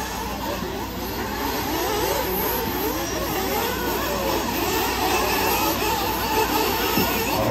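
Several radio-controlled off-road cars racing on a dirt track, their motors whining over one another and rising and falling in pitch as they speed up and slow down through the corners.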